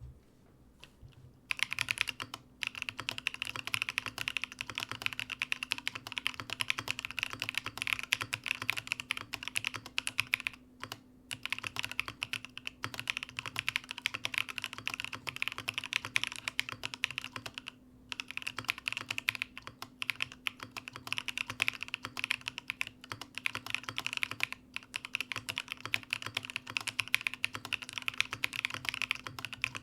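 Fast, continuous typing on a Mode Sonnet mechanical keyboard with BSUN Tuzi linear switches and MW Lilith keycaps: a top-mount aluminium plate on a hot-swap PCB, with no foam. The typing starts about a second and a half in and breaks off briefly a few times.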